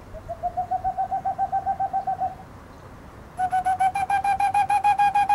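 A boreal owl's song, a quick even run of soft hoots about eight a second, played back from a phone recording. About three seconds in it is echoed on a handmade ceramic owl whistle: a louder, brighter run of hoots that rises slightly in pitch.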